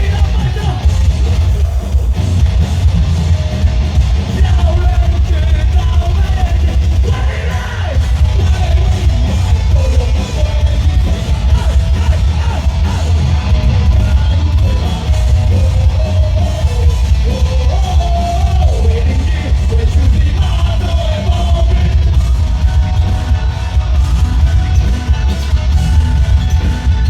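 Metal band playing live at full volume: heavy drums and bass, guitars, and a wavering sung melody line.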